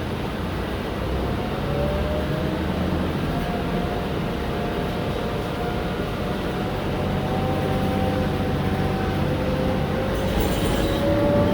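Mercedes-Benz O-500M rear-engined city bus running under way. A low engine rumble runs under a faint whine that glides slowly upward in pitch, which is the unusual noise this bus is singled out for.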